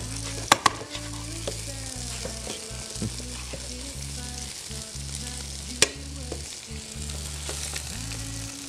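Spinach and diced carrots and potatoes sizzling in a stainless steel frying pan as a metal spoon stirs them. The spoon clinks against the pan twice about half a second in and once near six seconds.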